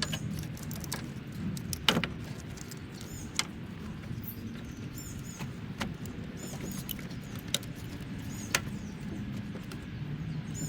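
Scattered sharp clicks and knocks of plastic electrical parts being handled and pressed into place as a relay box and its connectors are fitted, over a steady low hum.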